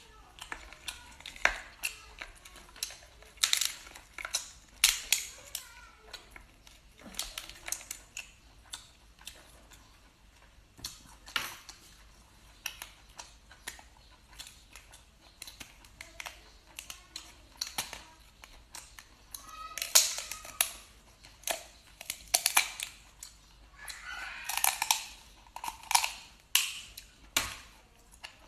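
Scissors snipping through the cooked shell of a Boston lobster, with the shell cracking and crunching as it is cut and pulled apart: a long run of irregular sharp snips and cracks.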